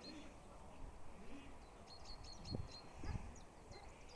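Faint outdoor background: a small bird chirping repeatedly in short, high chirps, with two dull low thumps a little after the middle.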